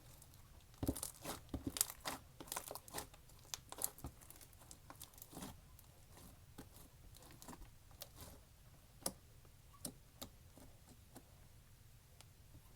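Slime being squeezed and worked by hand, giving a dense run of small crackling pops for several seconds, then scattered single pops.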